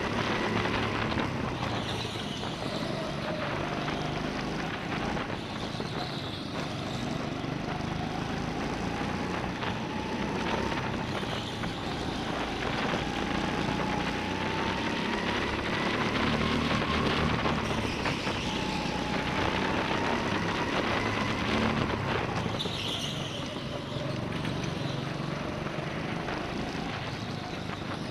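Go-kart heard from on board while racing on an indoor track: its motor whine climbs slowly in pitch as the kart gathers speed and drops back when it slows, over a constant low rumble.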